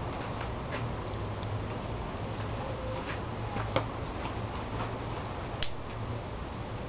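Fabric car cover being handled over a van's roof: faint scattered rustles and light clicks, with two sharper clicks about two seconds apart near the middle, over a steady low hum.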